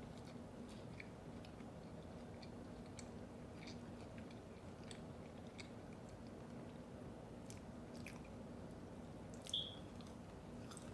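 Close-miked chewing of food, with scattered soft wet mouth clicks and light crunches, over a faint steady hum. One brief high squeak near the end is the loudest sound.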